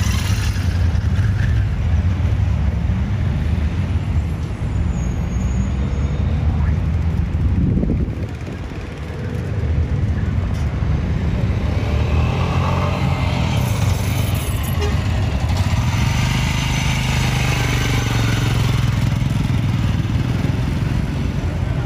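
Royal Enfield Scram 411 single-cylinder engine running as the motorcycle is ridden, dropping in level for about two seconds near the middle before pulling again.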